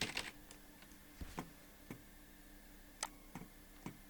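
Sharp computer clicks while a file is being saved: a quick cluster at the start, then single clicks spaced out over the next few seconds.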